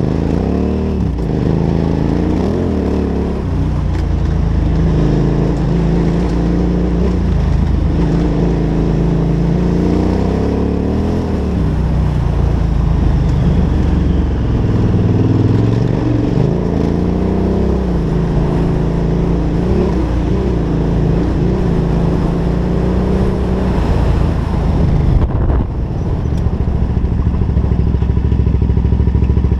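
KTM 990 Adventure's V-twin engine running as the motorcycle is ridden off-road over a rough dirt track, its note rising and falling again and again with the throttle and gear changes.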